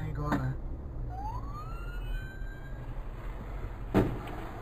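An ambulance siren gives one rising wail about a second in, over steady low road rumble; about four seconds in comes a sharp, loud crash as a car hits the ambulance.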